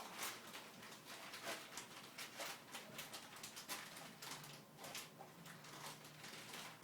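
A puppy rummaging at a kitchen garbage can: a faint, quick, irregular run of rustles and light clicks, several a second.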